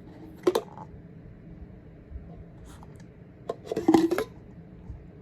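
Cups and a stainless steel cook pot being handled. There is a sharp knock about half a second in, then a louder clatter with a brief ring around four seconds, as the nested cups come out of the Stanley two-cup cook pot.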